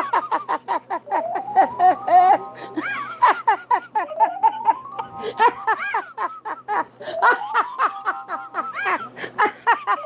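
An old woman's cackling laughter, a fast run of short hah-hah bursts that keeps going without a break. A sliding tone rises underneath it about every three seconds.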